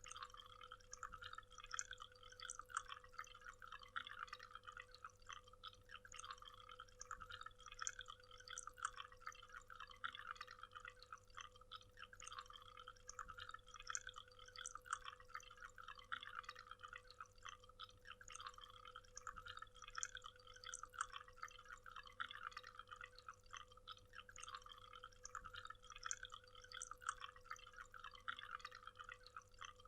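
Faint water from a waterfall splashing and trickling: a dense, even patter of droplets, with a steady hum beneath it.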